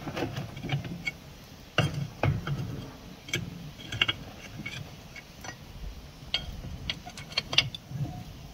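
Small wood fire crackling in a barrel barbecue's firebox: irregular sharp pops and clicks, with a couple of duller knocks about two seconds in as bricks and sticks are shifted by hand.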